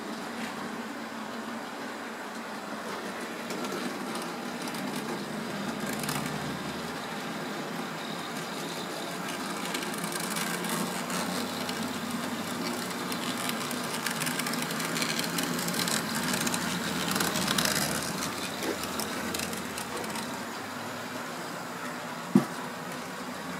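Model train of three VR diesel locomotives hauling a long rake of grain wagons, running along track laid on wooden benchwork: a steady rolling rumble of wheels and motors that swells for a few seconds past the middle. A single sharp click comes near the end.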